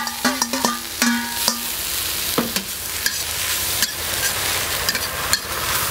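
Metal spatula scraping and clanking against a wok as shredded cabbage is stir-fried in lard, the clanks ringing briefly in the first second and a half. After that the hot fat gives a steady sizzle, with a few single knocks of the spatula.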